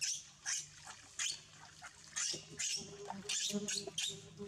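Baby monkey making short, hissy sounds over and over, about two a second.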